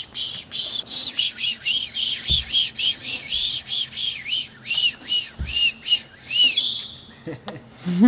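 A quick, even run of short whistled chirps, each rising and falling in pitch, about three a second, stopping about six and a half seconds in.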